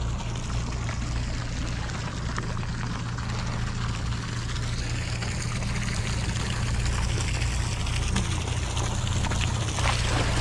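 Water splashing and sloshing as a hooked bluefin tuna thrashes at the surface beside the hull while it is gaffed, over the steady low drone of the sportfishing boat's engine. The splashing grows louder toward the end.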